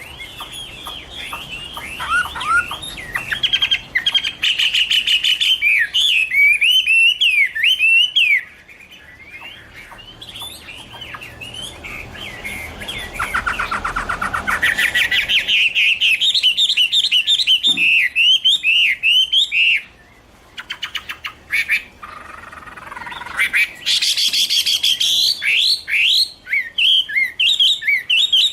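Chinese hwamei (Garrulax canorus) singing a long, loud, varied song of whistled phrases, with a fast run of rapidly repeated notes about halfway through and a short pause about twenty seconds in.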